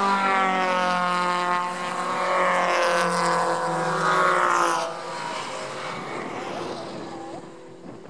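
Sports cars' engines on a race track, passing at speed, their engine notes sliding down in pitch, then dropping away about five seconds in.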